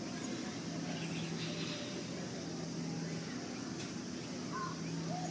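Grey crowned crane booming: low, steady hooting notes, each held for under a second and repeated about every two seconds.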